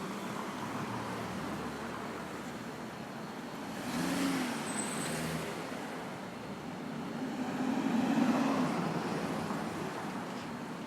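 City street traffic: a steady wash of road noise, with two vehicles passing close by, the louder pass around four seconds in and another around eight seconds in.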